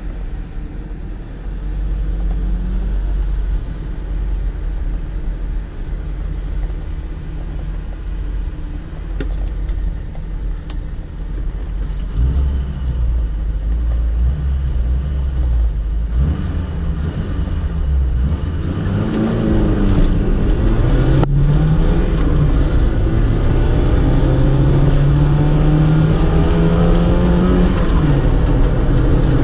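Lada rally car engine heard from inside the cabin: idling at the start line, then revved, and from about sixteen seconds in accelerating hard through the gears, its pitch climbing in each gear and dropping at the shifts, with a sharp click at one shift.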